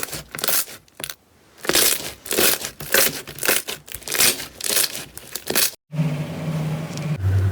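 Slime being worked by hand in crackly, crinkling strokes, about two a second, with a short pause about a second in. After a cut near the end, a steady low hum runs under quieter squishing.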